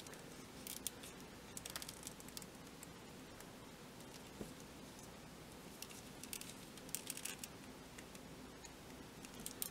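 Faint clicks and scrapes of fingers handling a plastic S.H. Figuarts action figure while working its stiff elbow joint, coming in a few short clusters: about half a second in, around two seconds in, and again from about six to seven and a half seconds.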